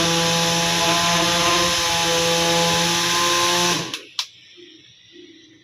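Small DC motor of a homemade fan running at full speed with a steady whine and hiss. It cuts off about four seconds in, followed by a click from the switch.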